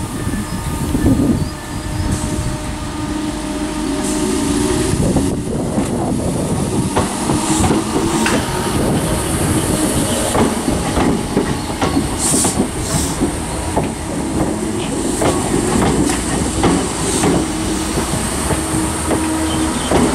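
Class 313 electric multiple unit pulling away, with steady low tones from its motors under irregular clicking and clattering of wheels over rail joints and points. There are two brief high hisses about twelve seconds in.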